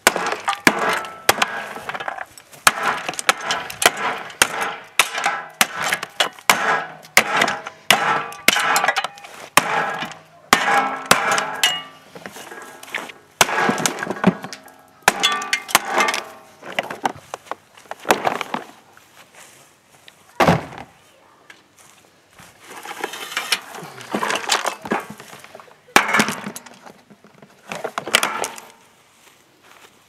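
A hammer repeatedly striking and cracking the plastic outer tub of a washing machine, a quick run of sharp blows each with a brief ringing after it. The blows thin out after the middle, one lone loud blow, then another run of strikes near the end.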